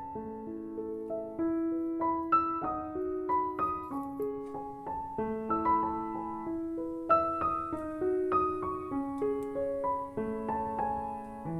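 Background piano music: a gentle melody of single notes over soft chords.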